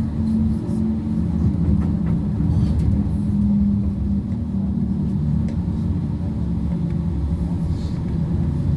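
Interior of a moving PESA Foxtrot low-floor tram: a steady low running rumble with a low hum that shifts slightly in pitch.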